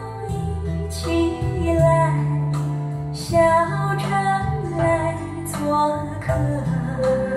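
Recorded music playing through JM Lab Mezzo Utopia floorstanding speakers driven by a Splendid Audio KL08 vacuum-tube integrated amplifier, heard in the listening room. A female voice sings a slow melody over a bass line and accompaniment.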